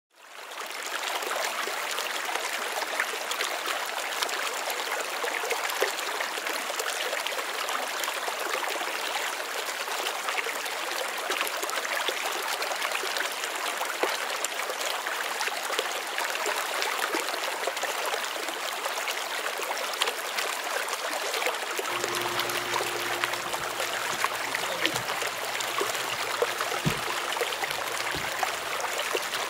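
Steady rush of running water with trickling. About two-thirds of the way through, a low steady hum joins it.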